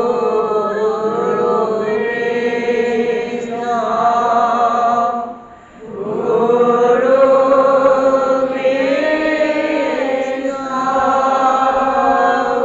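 Devotional chanting of Assamese Bhagavat verses in long, drawn-out sung lines. There is a short break for breath about five and a half seconds in.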